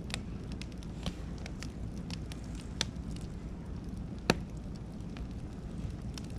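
Beech and oak firewood burning in an open bonfire, crackling with irregular sharp pops over a low steady rumble. The loudest pop comes about four seconds in.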